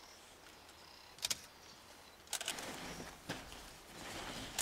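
A single-lens reflex camera shutter clicks in a quick double about a second in, and again about two seconds in, over faint outdoor background. After the second shutter a soft hiss with a low rumble rises.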